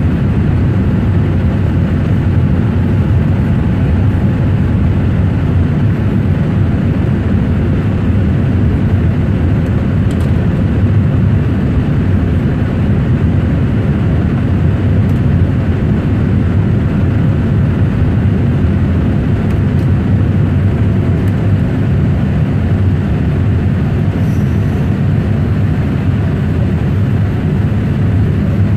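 Steady low cabin rumble of a Boeing 787 Dreamliner's engines and airflow, heard inside the passenger cabin during the climb after takeoff.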